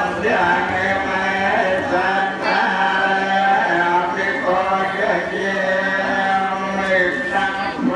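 A Khmer achar (lay Buddhist officiant) chanting dharma in continuous recitation, asking blessings, over a steady held low pitch.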